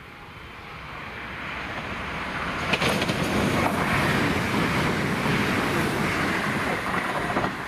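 A train approaching and passing along the track: a rush of wheel and air noise that builds over the first three seconds, then holds loud and steady, with a sharp clack about three seconds in.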